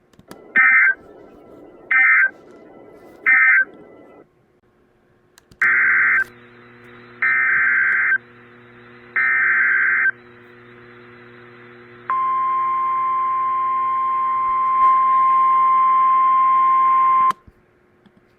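Emergency Alert System data bursts on NOAA Weather Radio: three short end-of-message bursts, then three longer SAME header bursts announcing the next warning. These are followed by the steady 1050 Hz weather-radio alert tone, held for about five seconds before it cuts off.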